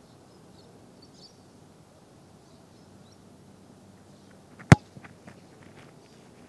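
One sharp, loud thump of a boot kicking an Australian rules football in a set shot, about two-thirds of the way in. A few quick footsteps on grass lead up to it, and a few lighter steps follow.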